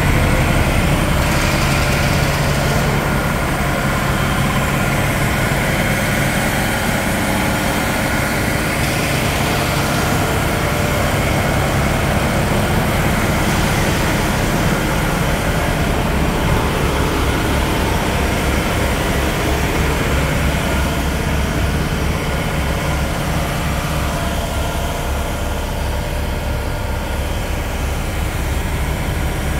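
DAF XF 95.430 tractor unit's 12.6-litre straight-six diesel engine idling steadily.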